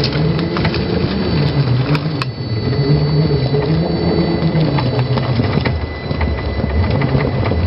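A 1/10-scale RC rock crawler's motor and gear drivetrain whines as it climbs rock, its pitch dipping and rising with the throttle. Scattered sharp clicks come from the tyres and chassis catching on the rock.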